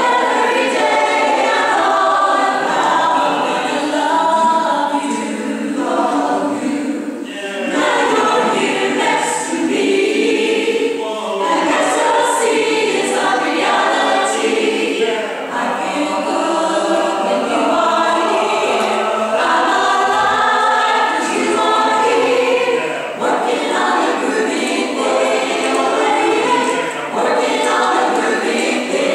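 Mixed choir of women's and men's voices singing together.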